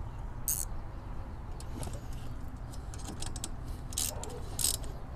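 Wrenches on a bolt and nut: a few short, irregular metallic clicks and jingles as 10 mm wrenches tighten an M6 bolt on a transmission cooler's mounting bracket.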